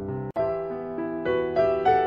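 Background music played on a keyboard: a slow melody of held notes over chords. It cuts out for an instant about a third of a second in, then carries on.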